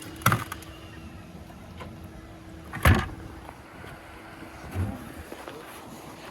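Dull handling knocks in a small fishing boat: three thumps, the loudest about three seconds in, over a faint steady hum that stops a little past the middle.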